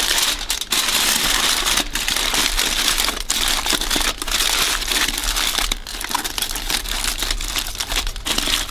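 Sheets of aluminium foil being crumpled and folded by hand around a banana-leaf parcel: continuous crinkling with short breaks, a little softer in the last few seconds.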